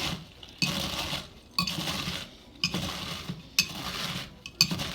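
Nacho Cheese Doritos tortilla chips being crushed in a glass container: five crunching strokes about once a second, each starting with a sharp click of the crushing tool against the glass.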